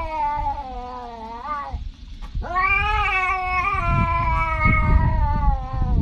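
Tabby cat yowling in two long drawn-out calls. The first slides down in pitch and breaks off about two seconds in. A second long call starts about half a second later.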